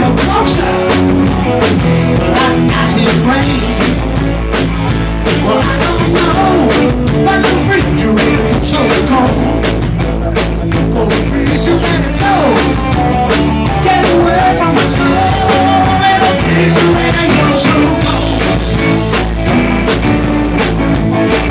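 Live rock band playing, with electric guitar, bass and drums going steadily and some sung vocal lines.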